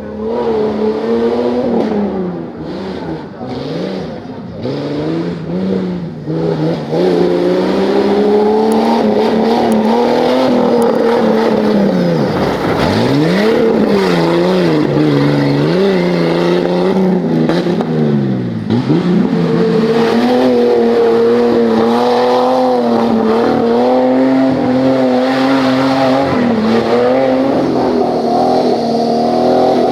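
Off-road 4x4 engine revving hard under load, its pitch repeatedly rising and falling and dropping sharply twice midway, then holding a steadier high rev through the second half.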